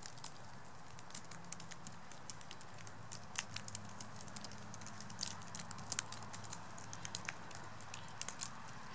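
Northwestern crow pecking at and cracking sunflower seeds on the ground: irregular sharp clicks and taps of its beak on the seed shells, coming more often from about three seconds in.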